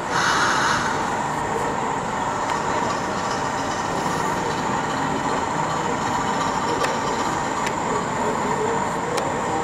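OO gauge model railway layout in operation: a steady train-like running noise, with a few faint clicks near the end.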